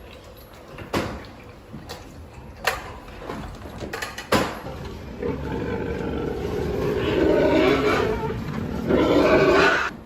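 Pigs vocalizing: a few sharp knocks, then a long, loud call that builds over the second half and is loudest just before it cuts off.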